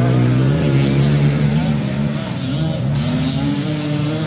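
Dirt bike engines revving, their pitch rising and falling, with more than one engine heard at once; one climbs steadily in pitch near the end.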